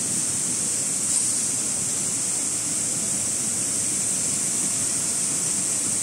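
Maxi roll shrink-wrap packaging line running: a steady, even hiss with a low rumble underneath, and a light knock about a second in.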